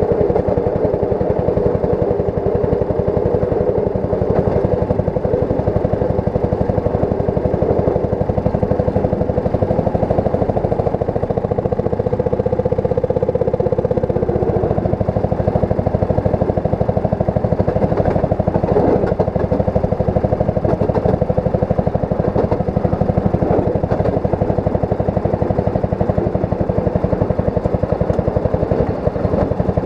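A railroad speeder's small engine running steadily at cruising speed as the car rolls along the track, with a few sharp clacks from the wheels on the rails past the middle.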